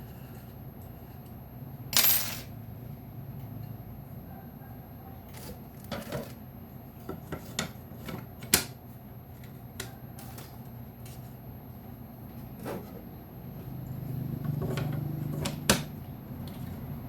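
Small hard parts of a selective soldering jig clicking and clinking as they are handled and fitted together, with a half-second rattle about two seconds in and sharp clicks near the middle and near the end.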